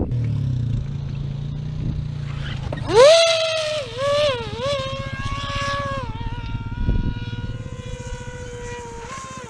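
A low steady drone, then about three seconds in a model plane's electric motor and propeller spool up into a loud rising whine that levels off and wavers in pitch as the throttle changes, slowly dropping as the plane flies away. The motor seems short of power for the plane's weight.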